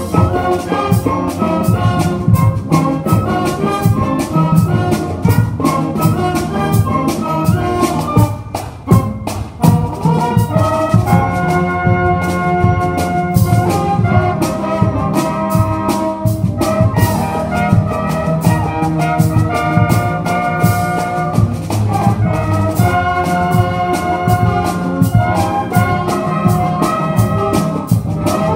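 School pep band playing an upbeat tune, brass over steady drums, with a short drop in loudness about eight seconds in.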